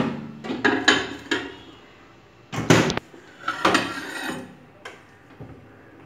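Clunks and clatter of a glass baking dish being handled in and out of a microwave oven and the oven door being worked, a sharp knock at the start and a louder clunk about two and a half seconds in.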